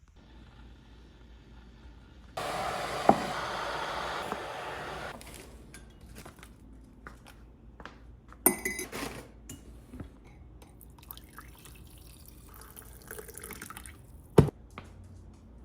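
Water running for about three seconds, like a tap filling something, followed by scattered clinks and knocks, with two sharper knocks about halfway through and near the end.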